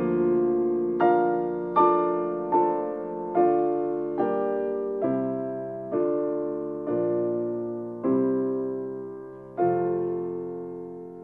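Slow, gentle piano music: chords struck about once a second, each left to ring and fade. The last chord, a little before the end, rings out and dies away.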